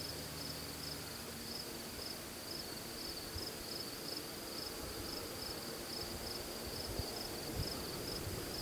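Crickets chirping in a steady rhythm, about two high chirps a second, over faint background noise.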